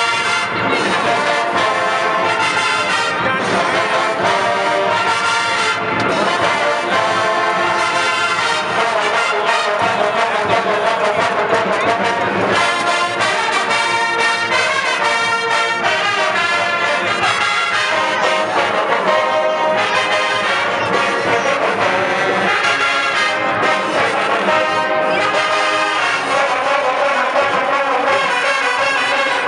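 Brass music: a tune played on brass instruments, loud and steady, with notes changing quickly throughout.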